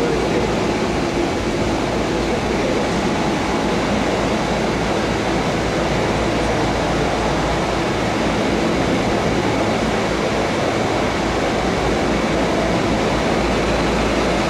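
Boeing 737-700 jet engines running at taxi power as the airliner lines up on the runway: a steady rushing engine noise over a low rumble.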